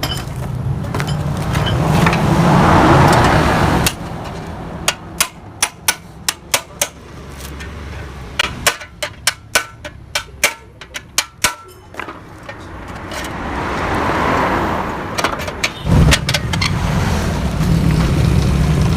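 Hammer blows on metal, a run of sharp strikes about two or three a second from about five to twelve seconds in, typical of knocking out the baffles of a Yamaha RX-King exhaust muffler. Before and after the strikes, a steady low mechanical running with a hiss that swells and fades.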